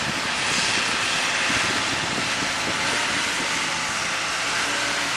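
Diesel engine of a semi truck loaded with sugar beets working as it pulls slowly through a soft, muddy field: a steady rushing drone with no change in pitch.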